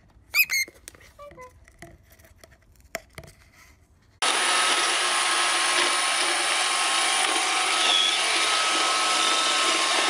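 A few short high squeaks from a small bird. Then, about four seconds in, a robot vacuum starts running loud and steady, and a single short bird chirp rises over it about halfway through.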